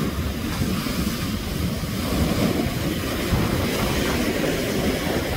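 Rough sea surf breaking and churning against rocks, with strong wind buffeting the microphone as a steady low rumble.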